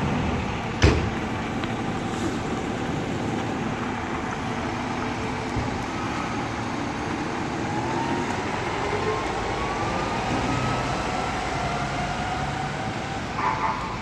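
Fire engine and street traffic running steadily, with a sharp knock about a second in. From about halfway a siren tone rises slowly, and a short horn blast sounds near the end.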